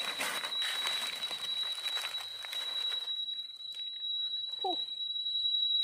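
Dry leaf litter rustling and soil scraping as a knife and hands dig into the forest floor, heaviest in the first few seconds. A steady high-pitched whine runs underneath, typical of cicadas or other forest insects. A short call that bends up and down comes near the end.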